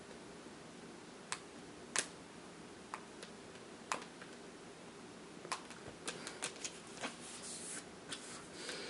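Scattered light, sharp clicks and taps from hands handling small objects, sparse at first and coming more often in the second half, with a brief rustle about three quarters of the way through.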